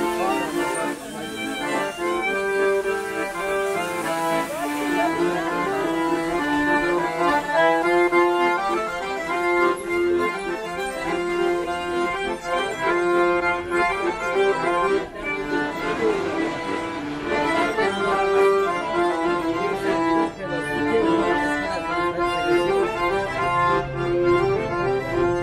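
Piano accordion and violin playing a tune together, with a repeating low note pulsing under the melody.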